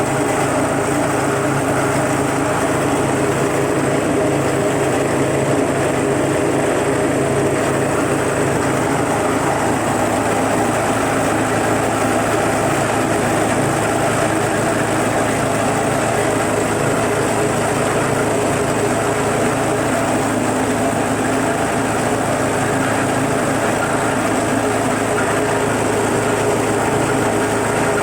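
Stainless-steel disk mill salt grinder running steadily with an even machine drone.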